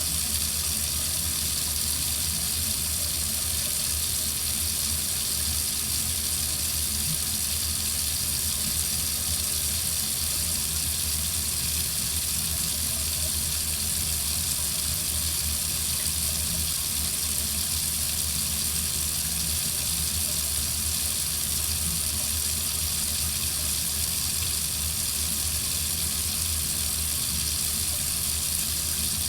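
Water running steadily from a faucet: an unbroken, even hiss of flowing water that does not change.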